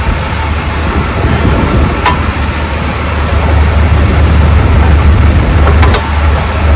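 Farm tractor engine running steadily with a low hum, with a few brief clicks about two and six seconds in.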